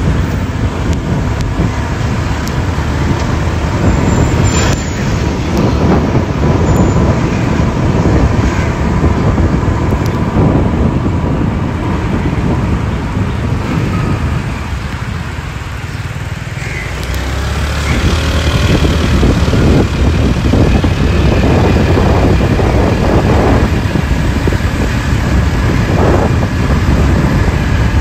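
Riding on a motorcycle: wind buffeting the microphone over the bike's engine and road noise. It eases for a few seconds about midway, then rises again.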